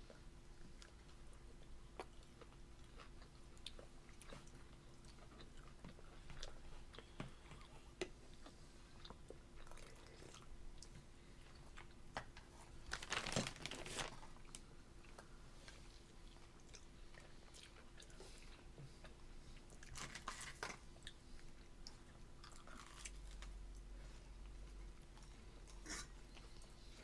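Faint sounds of a toddler eating with a fork from a plastic plate: chewing and scattered light clicks, with a louder scratchy burst about halfway through, over a low steady hum.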